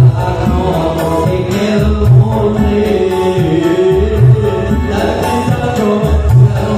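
A man singing a Javanese Islamic devotional song (syi'ir) into a microphone over amplified accompaniment with a regular low beat, his voice drawing out long, wavering notes.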